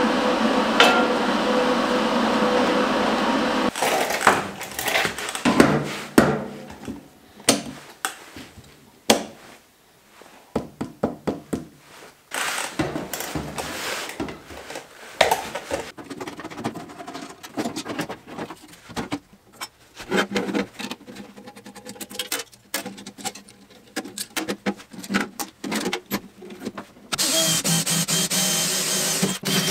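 A steady machine hum that cuts off about four seconds in, followed by scattered knocks and clicks of metal parts being handled and fitted. Near the end a power drill bores into the sheet-steel casing of an electrical switch box.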